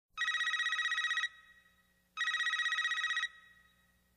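Telephone ringing: two rings about a second long each, roughly two seconds apart, each a fast warbling trill.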